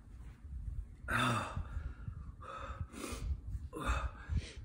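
A man gasping and breathing hard in a few short bursts about a second apart, pained breaths from a mouth burning with an extremely hot pepper chip.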